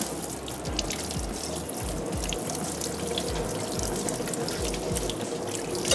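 Kitchen tap running steadily into a sink as hands are washed under it.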